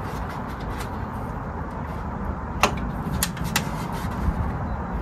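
Hands working a plastic wiring-harness connector on a car's rear bumper: three short sharp clicks in the second half, over a steady low background rumble.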